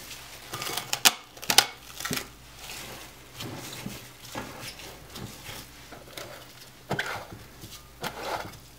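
Plastic cling wrap crinkling as hands press and smooth it over a glass mixing bowl, with a few sharp crackles, the loudest about one and one and a half seconds in.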